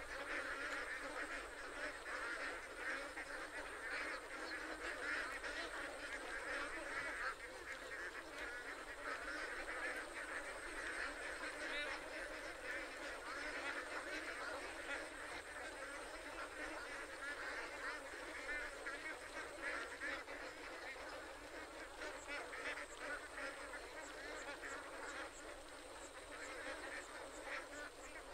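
A large flock of domestic ducks quacking continuously, many calls overlapping into a steady chatter.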